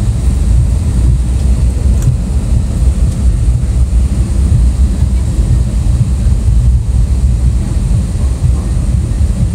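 Loud, steady low rumble of an airliner's cabin noise.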